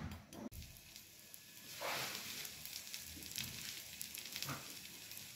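A suji-coated bread slice frying in ghee on a hot tawa, sizzling steadily with small crackles and swelling about two seconds in. Near the start a metal spatula knocks twice against the pan as the slice is turned over.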